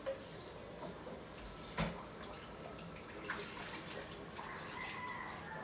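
Washing up at a kitchen sink: water running, with clicks and knocks of kitchenware and one sharper knock about two seconds in.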